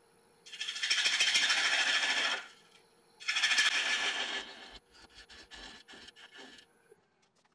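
A 10mm parting tool cutting into a spinning yew bowl blank on a wood lathe, in two harsh scraping passes of about two seconds each, followed by a run of short clicks and knocks. A faint steady whine beneath stops near the end.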